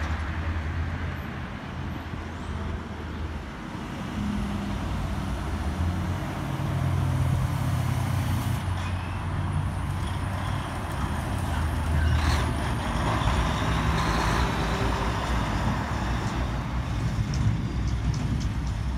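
Heavy diesel trucks driving past. Their deep engine notes rise and drop in steps as they change gear, with a short burst of air hiss partway through.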